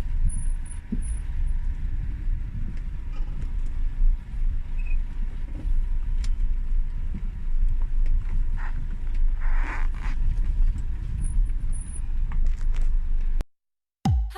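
Car driving up a rough, bumpy mountain road: a steady low engine and road rumble with scattered small rattles and knocks. It cuts off abruptly shortly before the end.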